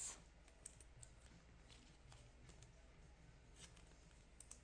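Near silence, with faint scattered clicks and light rustles from trading cards being handled.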